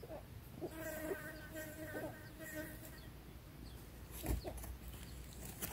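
A flying insect buzzing in short spells at a steady pitch for about two seconds. About four seconds in there is a low thump with a few short squeaky sounds.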